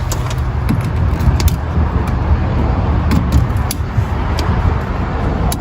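Car engine idling with a steady low rumble, with a few faint light clicks of handling tools and parts over it.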